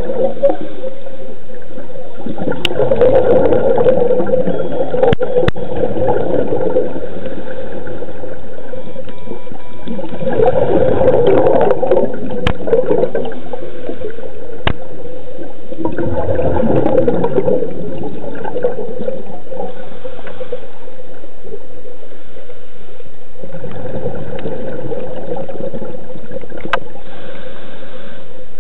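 Scuba diver breathing through a regulator underwater: a burst of gurgling exhaled bubbles about every six to seven seconds, with quieter inhalations between. A few sharp clicks fall between the bursts.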